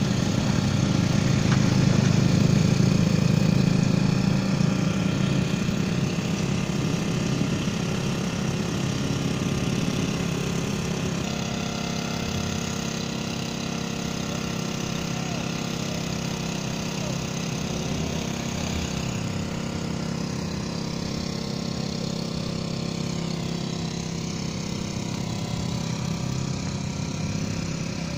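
An engine idling steadily with a low hum, loudest in the first few seconds and slowly fading over the rest.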